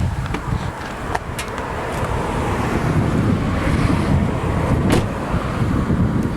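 Loud wind buffeting the microphone, an irregular low rumble that grows a little stronger after about two seconds, with a few sharp clicks.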